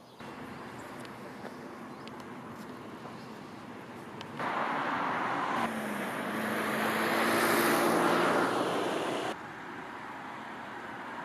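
Road noise of a moving car: a steady rush of tyres and engine. A louder stretch in the middle swells to a peak and then cuts off suddenly.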